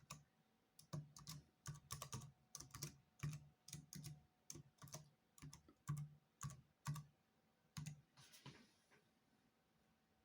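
Typing on an old HP 630 laptop keyboard: a run of irregular keystrokes that stops about eight seconds in.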